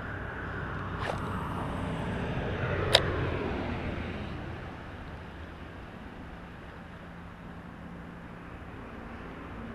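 A car passing by on a road: its noise swells over the first three seconds and fades away by about five seconds. Two sharp clicks come during the swell, the louder one at its peak.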